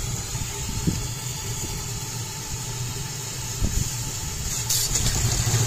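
Scale-model Case steam traction engine being started: a steady steam hiss over a low rumble, with a few single knocks. Near the end a short louder rush of steam and a louder low sound as the engine begins to turn over. The open cylinder drains spit condensed water while the cylinder is still cold.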